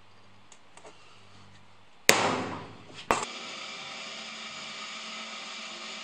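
A hammer strikes a center punch on a steel knife blank once with a sharp, ringing metallic hit, followed a second later by a shorter knock. A drill press then starts running steadily, drilling pin holes in the blank.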